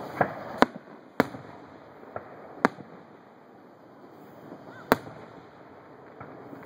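Aerial fireworks shells bursting: about seven sharp bangs at uneven intervals, the loudest four within the first five seconds.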